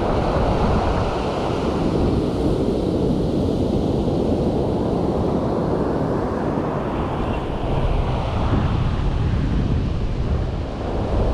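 Ocean surf washing onto the beach, a steady rushing that swells and eases, with wind buffeting the microphone.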